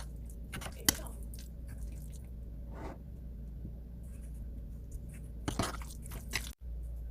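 A few sharp clicks and light scrapes of kitchen utensils against dishes during food preparation, over a low steady hum.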